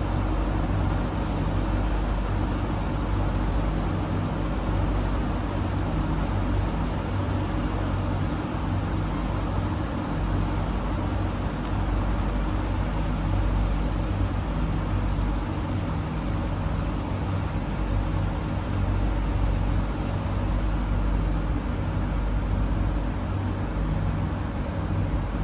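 Steady hum and drone inside a stationary SMRT C151B train car, from its air-conditioning and auxiliary equipment running while it stands at the platform.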